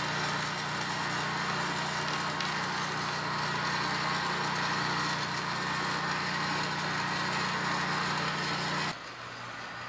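A steady mechanical hum that drops away abruptly about nine seconds in, leaving a quieter background.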